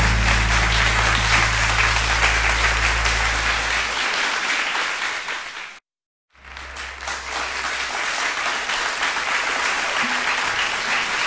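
Audience applauding, many hands clapping, with a low steady hum underneath for the first few seconds. The clapping cuts out for about half a second some six seconds in, then resumes and stops abruptly.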